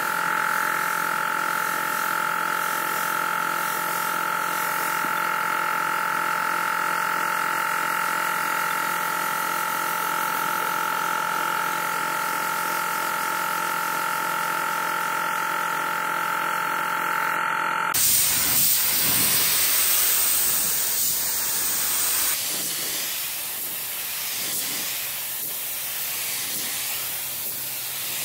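Compressed air hissing from a gravity-feed paint spray gun as it sprays paint, with a steady whistle over the hiss for most of the first part; the hiss changes abruptly twice in the second half.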